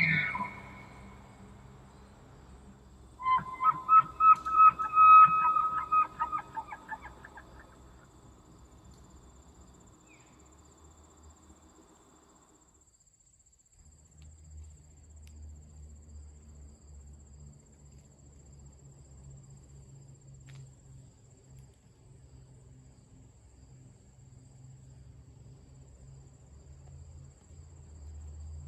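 Bull elk bugling: a run of rapid, stuttering high-pitched whistling calls from about three to seven seconds in, fading away. After that there is only a faint steady high tone and a low rumble.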